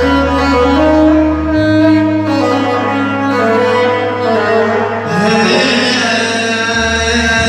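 Instrumental passage of a live Arabic mawwal: a held melodic line over sustained bass notes that shift pitch twice.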